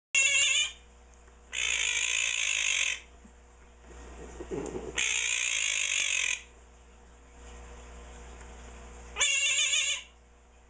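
Quaker parrot (monk parakeet) repeating a loud, annoying call four times. Two short wavering calls open and close the sequence, and between them come two longer harsh, raspy calls of about a second and a half each.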